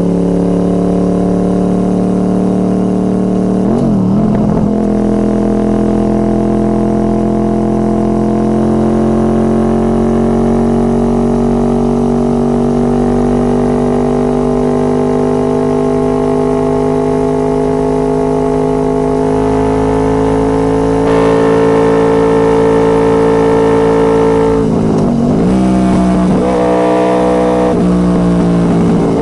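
2006 Honda VFR800 Interceptor's V4 engine running through a Two Brothers Racing aftermarket exhaust. Its pitch creeps slowly upward, with a brief dip and recovery about four seconds in and again near the end.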